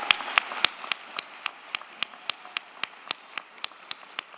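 Audience applauding. The general applause thins out while close, sharp claps keep a steady beat of nearly four a second.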